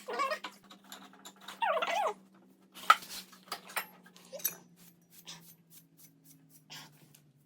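A dog whining in short whimpers that bend up and down in pitch, mixed with light metallic clicks and clinks of parts being handled; a sharp clank about three seconds in is the loudest sound.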